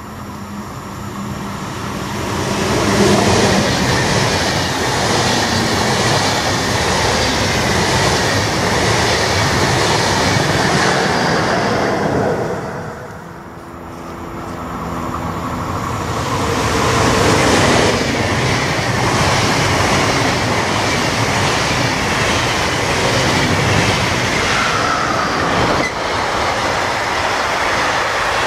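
Two trains pass in turn on an electrified main line. The first, a red train, rushes past and fades about twelve seconds in. Then an electric locomotive hauling a long intermodal freight train of containers and semitrailers approaches, and its wagons roll past with steady wheel-on-rail noise.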